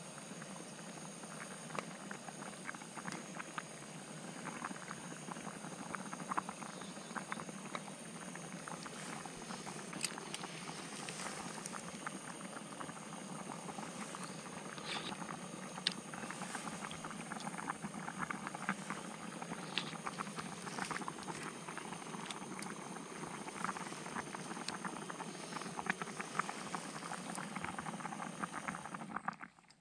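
Short rib soup boiling hard in a small aluminium pot on a SOTO G-Stove gas burner: irregular bubbling and popping over a steady burner rush. The sound stops suddenly at the very end.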